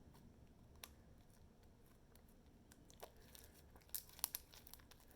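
Sticky slime being mixed and kneaded by hand, mostly quiet, with a few faint scattered clicks and pops and a small cluster of them near the end.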